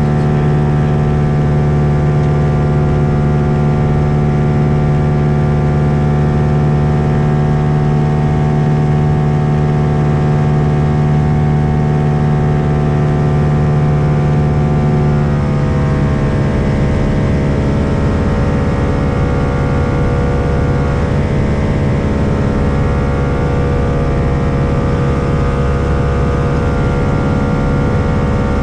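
Lake Buccaneer LA-4-200's four-cylinder Lycoming piston engine and propeller running steadily. About halfway through, the engine's pitch drops as power is eased back, and it then holds lower with a slight waver.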